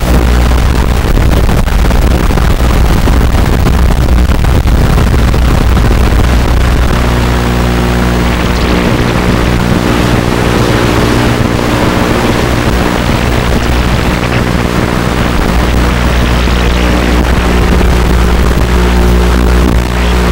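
Small FPV drone's electric motors and propellers running with a steady hum of constant tones, picked up loud by its onboard camera microphone.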